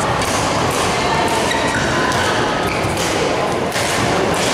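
Badminton rally in a large hall: rackets striking the shuttlecock in repeated short, sharp hits over the steady din of the hall.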